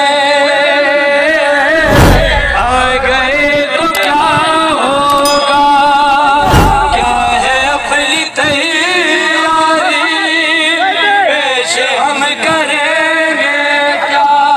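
Crowd of men singing a devotional Urdu manqabat refrain together through a microphone, many voices overlapping. Two heavy thumps break in, about two seconds in and again just past the middle.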